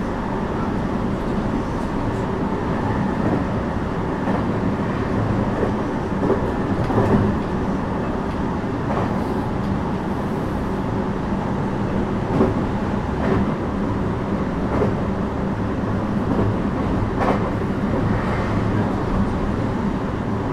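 JR West 321 series electric train running at speed, heard from inside the car: a steady rumble of wheels on rail with a low hum, broken by a few short knocks from the wheels.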